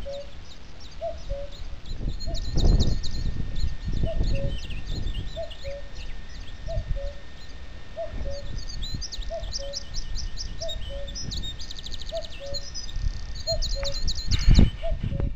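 Male common cuckoo calling its two-note 'cu-coo', the second note lower, repeated about once every second without a break. Smaller birds sing higher-pitched phrases over it, and wind rumbles on the microphone, with a loud gust near the end.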